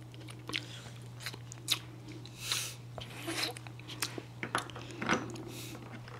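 Chewing and mouth sounds of someone eating candy close to the microphone: scattered small clicks and wet smacks.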